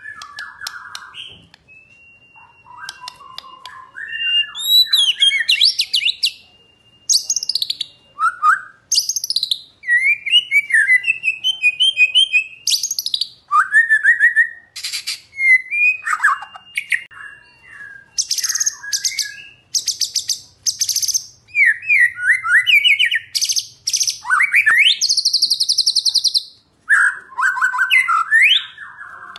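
Male white-rumped shama singing a long, varied song: whistled phrases that glide up and down, fast buzzy rattles, and now and then a long held high note, delivered in quick bursts with short gaps.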